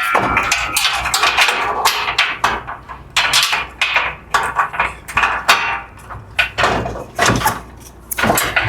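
Steel Baker scaffold parts clanking and knocking: a quick, irregular run of sharp metal knocks and rattles as the pieces are handled and fitted.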